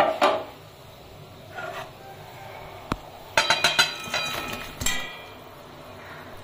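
Metal utensils clinking, knocking and scraping against a kadai as fried snakehead fish pieces are slid from a plate into the curry gravy. A couple of knocks come at the start, a sharp click near the middle, then a quick run of ringing clinks about three and a half seconds in and one more clink near five seconds.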